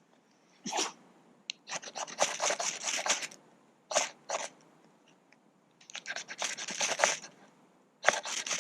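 Ferro rod being struck over and over: harsh scraping rasps in short runs and single strokes, some runs lasting over a second, with short pauses between. It is a repeated attempt to catch a spark in birch bark tinder that won't take.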